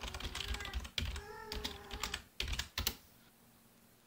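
Computer keyboard typing: quick, uneven keystrokes that stop about three seconds in.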